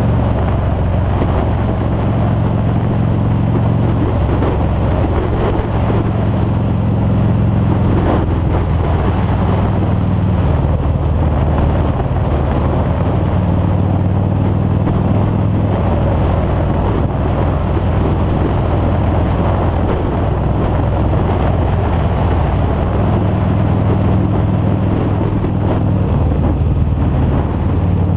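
A 2013 Harley-Davidson V-Rod Muscle's liquid-cooled Revolution V-twin running at road speed, its low note shifting a little every few seconds with the throttle. Wind rushes over the helmet-mounted microphone.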